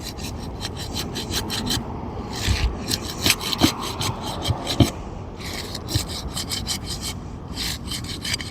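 Asphalt roof shingles being unsealed: a tool scraping and rasping under the shingle tabs in quick repeated strokes, breaking the adhesive seal strips, with a few dull knocks in the middle.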